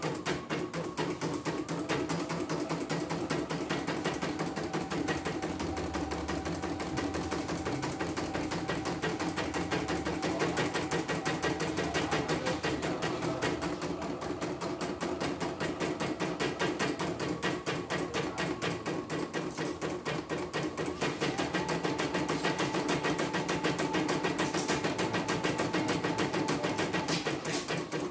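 CNY portable computerized embroidery machine stitching at a fast, even rhythm, with needle-bar strokes and hoop-drive motor sounds. It is a test run after repair, with a replaced power supply.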